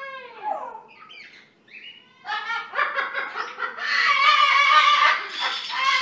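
Caged parrot vocalizing: a short call that bends up and down in pitch at the start, then from about two seconds in a loud, continuous run of calls.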